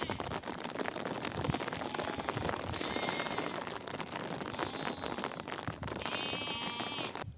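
Steady rain pattering close by, with sheep bleating a few times in the background; the clearest bleat comes near the end.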